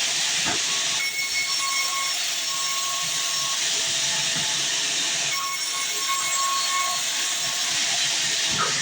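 Sawmill bandsaw blade cutting through a heavy, dense hardwood log: a steady, loud hiss of the cut with a high whine that fades in and out twice.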